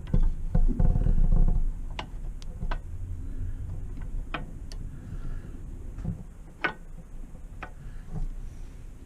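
Metal brake pads and caliper parts of a motorcycle's rear brake being handled: a second or so of low handling noise, then a string of sharp, lightly ringing metallic clicks and taps, irregularly spaced.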